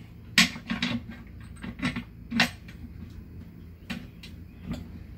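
About six sharp metal clinks and knocks at uneven intervals, the loudest near the start and about halfway through, as hands work on a UFP A-60 trailer surge brake actuator during reassembly.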